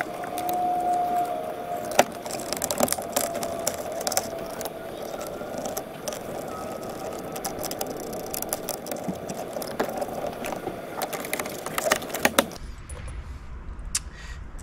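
Plastic steering-column shroud being handled and fitted around the column and clockspring: many sharp clicks, knocks and light rattles over a steady hiss with a faint whine.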